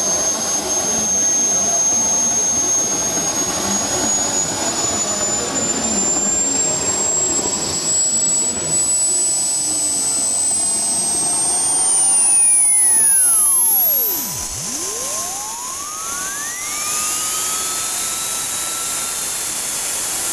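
JetJoe 1400 model jet turbine engine running, a steady roar with a thin high-pitched whine that climbs steadily in pitch as the turbine speeds up, then levels off near the end.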